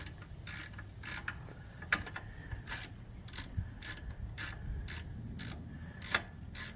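Hand ratchet wrench being worked back and forth on a bolt, its pawl clicking in short rasping strokes, about two a second.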